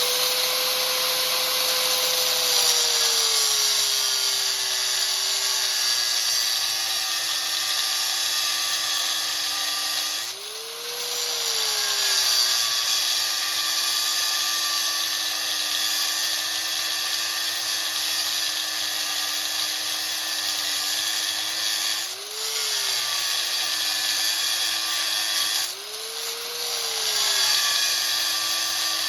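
Angle grinder with a cutting wheel notching a 5/8-inch bolt. The motor's whine sinks soon after the start and holds lower as the wheel bites into the metal, under a steady cutting hiss. It rises briefly three times, about 10, 22 and 26 seconds in, as the wheel eases off the cut.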